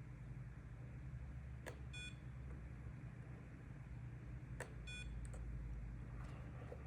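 A small battery spot welder fires twice on the tabs of an iPhone battery, about three seconds apart. Each weld gives a sharp snap, followed a moment later by a short electronic beep, over a steady low hum.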